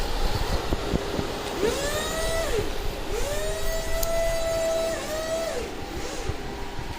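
Small electric motors of a homemade Arduino robot vacuum whirring over a steady noise. The motors repeatedly spin up to a steady whine and wind back down. The longest whine runs through the middle, with shorter ones near the end.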